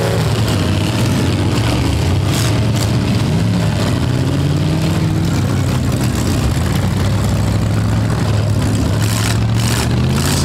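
V8 demolition derby cars' engines running and revving, with the pitch rising and falling. A few sharp bangs come about two seconds in and again near the end.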